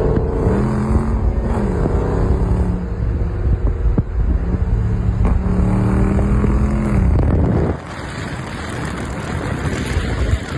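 Jeep Grand Cherokee SRT's 392 V8 engine revved twice, each rev held for about two seconds before dropping back. It then settles to a lower, steadier run a little under eight seconds in.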